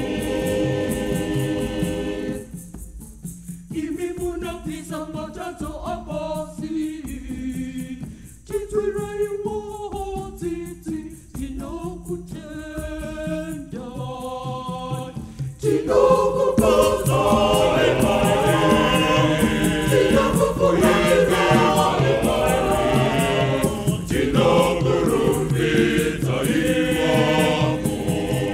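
Choir singing a Shona Catholic hymn. A couple of seconds in, the full choir drops away to a quieter passage carried by a single melodic line. The full choir comes back in louder about halfway through.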